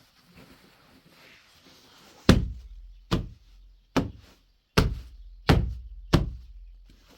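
Six heavy chopping blows in a steady rhythm, a little under a second apart, each with a short low thud after the strike.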